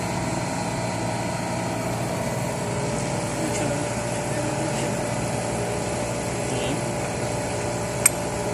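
Cold room refrigeration compressor unit running with a steady hum and several steady whining tones; a single sharp click about eight seconds in.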